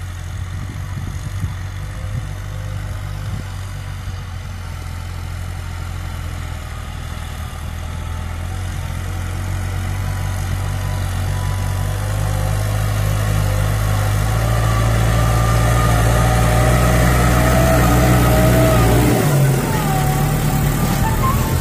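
Farm tractor's engine running steadily as it pulls a disc plough through the soil, growing louder as it comes closer; the engine note changes suddenly about nineteen seconds in.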